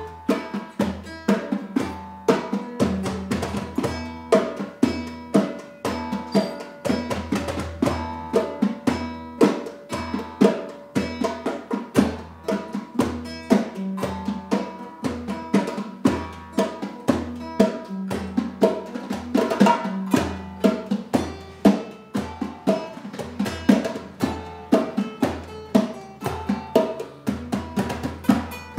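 Live acoustic jam: a classical guitar strummed over a djembe beating a steady rhythm, with held melody notes from a melodica.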